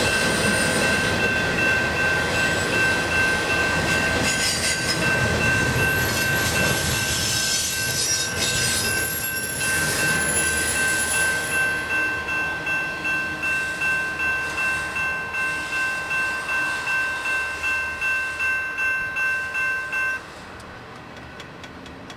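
Intermodal freight train's container cars rolling past, wheels clacking, with a grade-crossing bell ringing at a steady pitch. The train noise thins to a regular beat of about one and a half strikes a second. About two seconds before the end the bell stops suddenly and it goes much quieter.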